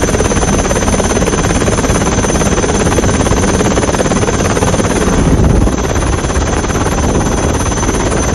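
Helicopter in flight, heard from on board: a loud, steady rush of rotor and engine noise that swells briefly about five seconds in.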